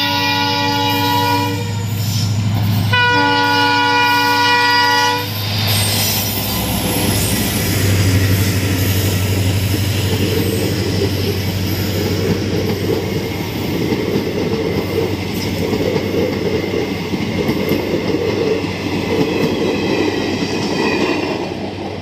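Indian Railways diesel locomotive sounding its horn in two blasts, a short one and then a longer one about three seconds in, followed by the steady rumble and wheel clatter of a passenger train passing close by.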